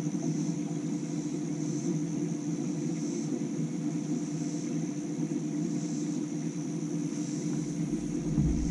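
Steady low electric hum of a bass boat's trolling motor, with a faint high buzz swelling and fading about every second and a half behind it. A deeper low rumble comes in near the end.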